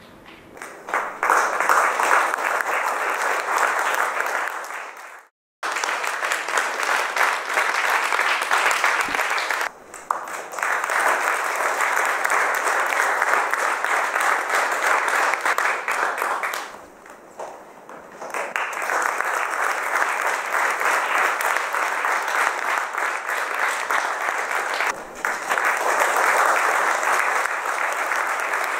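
Audience applauding, a dense steady clapping that cuts off for a moment about five seconds in and dips briefly a few times after.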